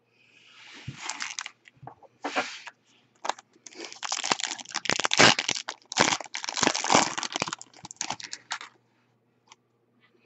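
Foil wrapper of a 2015 Bowman Chrome Jumbo pack of baseball cards being torn open and crinkled by hand, a dense crackling that starts just after the beginning and stops about nine seconds in.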